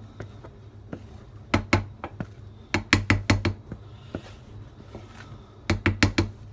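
A spatula knocking and scraping against a mixing bowl while thick cake batter is scraped out into a slow cooker crock: sharp knocks in three quick clusters, about one and a half, three, and six seconds in.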